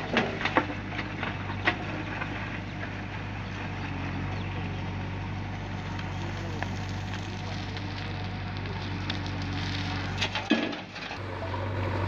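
JCB 3DX backhoe loader digging: its diesel engine runs steadily while the rear bucket scrapes and crunches into soil and stones. Sharp knocks come in the first couple of seconds and again about ten seconds in.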